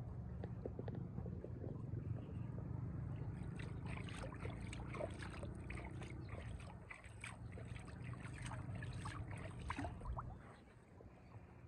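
River water splashing and lapping at the edge, with many small crackling splashes between about three and ten seconds in, over a steady low rumble that fades near the end.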